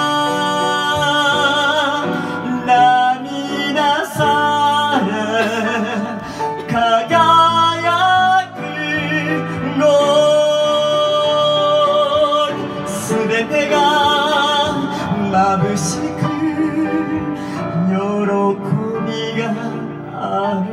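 A solo voice singing a musical-theatre ballad in Japanese, with wide vibrato on long held notes, over live piano accompaniment.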